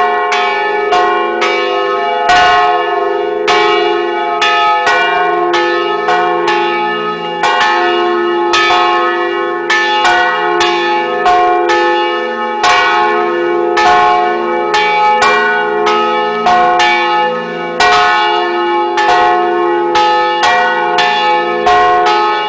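Restored old church bells, hung on wheels in a steel frame, ringing continuously. Strokes of several pitches come about twice a second at an irregular pace, and each rings on into the next.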